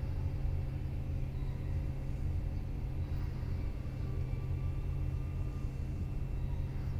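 Steady low rumble with a faint, even hum, unchanging throughout.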